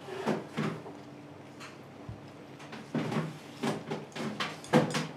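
Short wooden knocks and clunks of work at a sushi counter, two near the start and a quicker run of them in the second half, over a faint steady hum.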